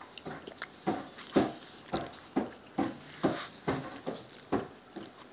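Close-miked chewing of chili with melted cheese, soft wet mouth smacks about twice a second.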